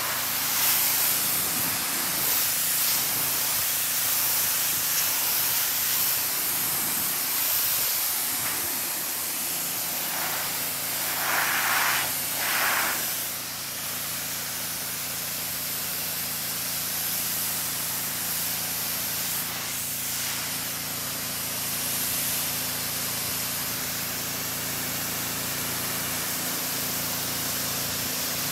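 Pressure washer spraying a steady hissing jet of water onto a truck and camper, with the washer's steady hum underneath. The spray swells louder twice, about eleven and twelve seconds in.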